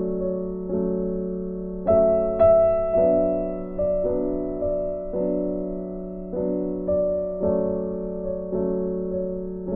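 Background piano music: slow, gentle notes and chords, each struck and left to fade, about one every half second to a second.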